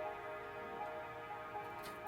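Soft background music of steady, sustained tones, with a couple of faint clicks near the end.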